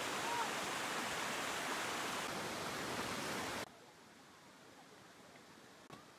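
Rushing water of a small waterfall pouring over rocks into a pool, a steady noise that drops suddenly to a faint hiss about three and a half seconds in.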